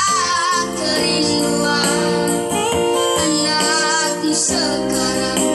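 Two boys singing a song as a duo into a microphone, accompanied by an electronic keyboard.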